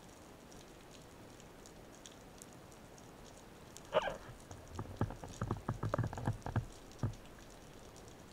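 Underwater sound during a spearfishing dive: a faint, steady crackle of tiny clicks, then a sharper click about four seconds in and a quick run of knocks and clicks for the next three seconds.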